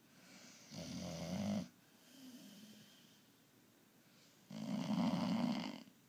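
A sleeping pit bull mix dog snoring: two loud snores about four seconds apart, each lasting a little over a second, with a soft breath between them.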